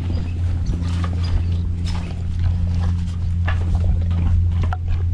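A restless horse moving about close by, with a few sharp knocks and scuffs, over a steady low hum.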